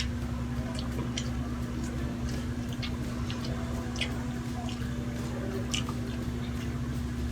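Close-up chewing and mouth sounds of someone eating sisig with rice, with scattered light clicks, over a steady low hum.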